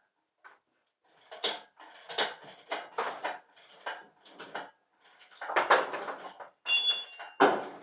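Steel bolts and engine-stand mounting hardware clinking and clanking against the engine as they are fitted: a run of irregular metal knocks, with a short ringing note near the end.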